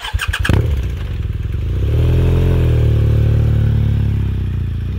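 Motorcycle engine: a rapid clattering start in the first half second, then running, rising in revs about two seconds in and holding there.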